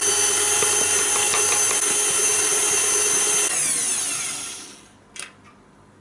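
KitchenAid Artisan stand mixer running steadily with a whine as its wire whisk beats cake batter. About three and a half seconds in it is switched off and the whine falls away as it spins down, followed by a light click.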